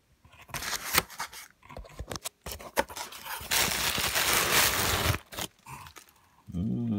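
Plastic packing wrap crinkling and rustling as it is pulled from a cardboard shipping box: a run of sharp crackles and scrapes, then a longer continuous tearing rustle lasting about a second and a half. A short low pitched sound follows near the end.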